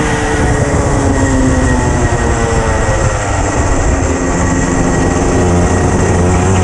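Racing kart engine heard onboard at race speed, its revs dropping over the first two seconds and then climbing again from about four seconds in as it pulls out of the corner.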